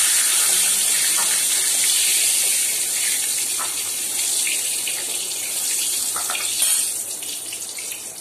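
Potato pieces sizzling in hot oil in a kadai as they are lifted out with a ladle: a steady high hiss with a few faint ladle clicks, fading near the end.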